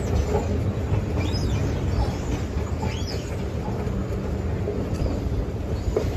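Moving escalator running with a steady low rumble, with a few faint short high chirps over it.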